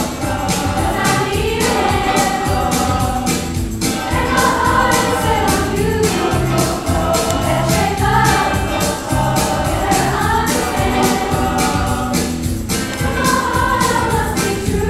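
Mixed-voice show choir singing with instrumental accompaniment that keeps a steady beat.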